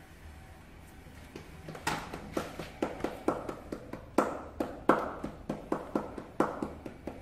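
A steady run of sharp knocks, about three a second, starting about two seconds in, each with a short ring after it.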